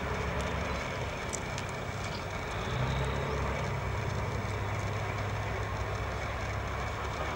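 Heavy tracked armoured vehicles running, a steady low rumble of engines and tracks with a noisy haze over it.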